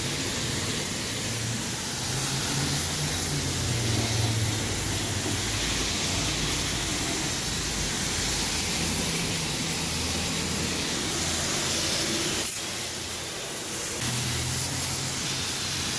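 Self-service car wash wand spraying low-pressure rinse water over a car's engine bay: a steady hiss of spray, with a faint low hum underneath and a brief softening about three-quarters of the way through.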